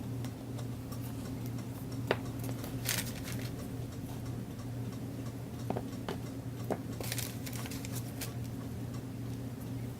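Handling of crafting materials: a few sharp clicks and short crinkly rustles, like cellophane and paper being handled, over a steady low hum.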